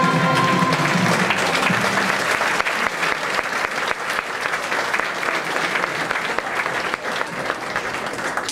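Audience applauding, at first over the last held chord of a sung number, which dies away about a second in. The clapping then carries on alone and fades a little toward the end.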